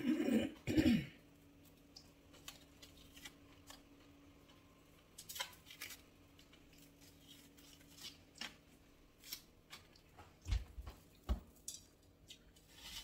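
Sparse knife clicks and taps on a cutting board as an onion is handled and cut, with two duller knocks near the end over a faint steady hum. A short throat or voice sound comes in the first second.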